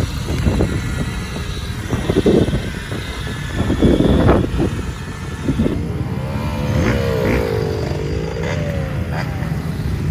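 Small youth dirt bike engines running over a steady low rumble. From about six seconds in, one engine's pitch wavers up and down with the throttle.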